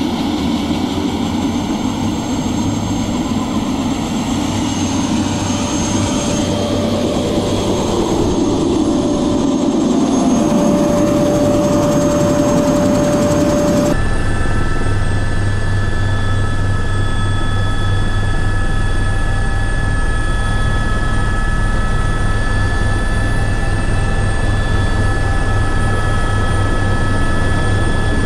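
Airbus AS350 Écureuil helicopter's turbine and rotor running on the ground, heard from outside. About halfway through the sound cuts to inside the cabin, with a steady turbine whine over an even rotor beat.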